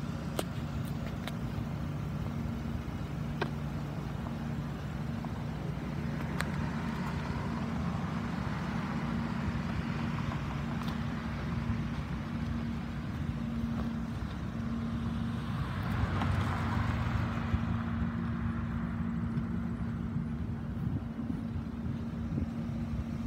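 2013 Ford F-450 truck engine idling steadily, with a brief rush of noise about two-thirds of the way through.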